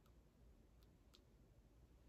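Near silence: faint room tone with three faint, short clicks, one at the start and two close together about a second in.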